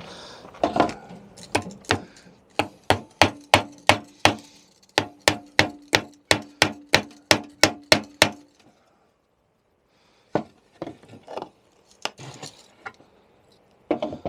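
Hammer blows knocking nails out of pallet planks: a quick, even run of about three strikes a second for several seconds, with a few scattered knocks before it and after a short pause.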